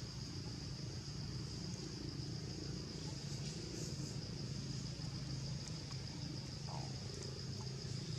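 Steady high-pitched insect drone, one unchanging shrill tone, over a constant low rumble.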